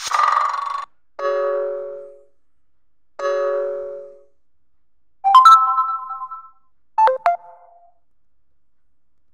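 Realme C11 smartphone playing its ringtone sounds: five short electronic chimes one after another with pauses between, the second and third alike, each fading out within about a second.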